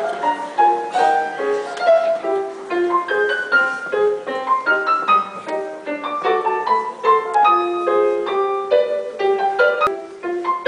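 Two upright pianos playing a quick tune live, a fast run of short notes, several a second.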